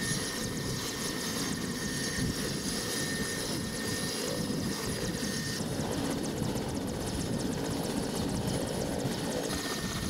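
Mi-17 helicopter running close by: steady turbine whine over dense rotor noise, with a fast, even blade chop. The sound shifts abruptly about halfway through.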